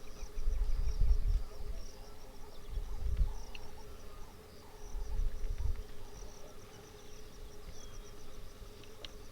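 Insects chirping in fast, regular pulses over a steady low drone. Three loud low rumbles come and go in the first six seconds.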